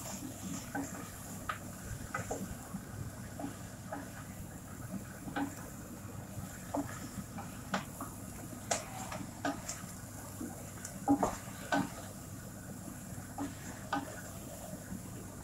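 Wooden spoon stirring food in a pot, with irregular light knocks and scrapes against the pot over a faint steady hiss.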